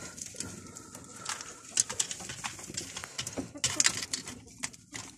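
Domestic fancy pigeons cooing in their loft, with scattered short, sharp clicks and scuffs throughout.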